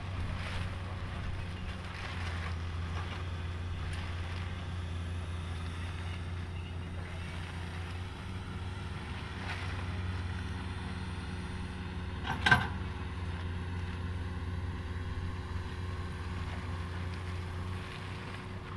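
Excavator's diesel engine running steadily with a low hum. About twelve seconds in comes one loud, sharp knock.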